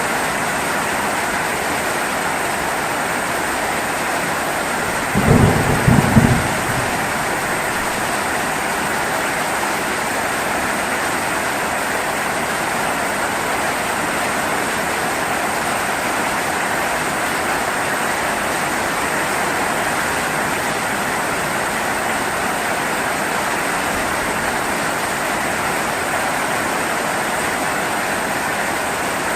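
Steady heavy rain falling. About five seconds in comes a short, loud, low clap of thunder lasting about a second and a half.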